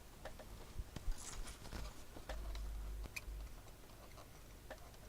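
Faint, scattered clicks and light taps of a soldering iron and desoldering braid worked against a circuit board to free a component's legs, with a brief low hum a little past halfway.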